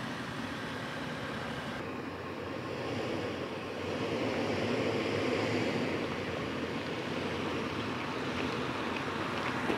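Off-road vehicles on a dirt trail: a steady, noisy rumble of tyres and driving with no clear engine note, swelling a little louder in the middle.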